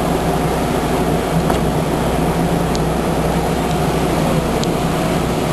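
Kinkisharyo light rail vehicle running with a steady electrical hum over a low rumble, with a few faint ticks.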